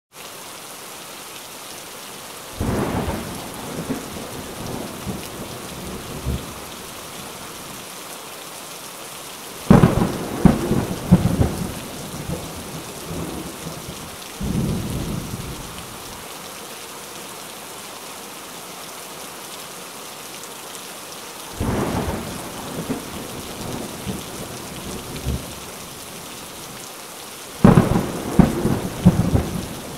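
Thunderstorm: steady rain hiss with five rolls of thunder at intervals of about six seconds, the loudest about ten seconds in and near the end.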